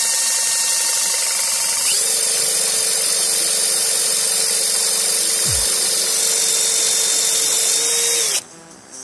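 Cordless drill running steadily, spinning a Spartamet 301 bicycle engine's crankshaft through a socket on the crank nut to break the engine in. A loud, hissy whir with a steady whine that shifts pitch about two seconds in, then stops near the end.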